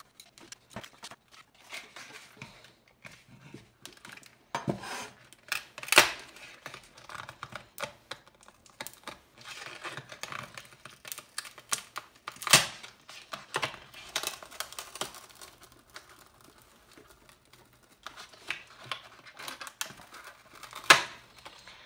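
Glued plastic insulation sheets being pried and pulled off a Mac Cube power supply's circuit board: plastic crinkling and tearing with many irregular clicks, and three louder sharp knocks spread through.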